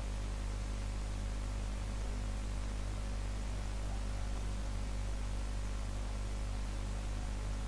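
Steady electrical mains hum with static hiss on the recording line, a constant low buzz that does not change: the interference behind the disturbed sound of the recording.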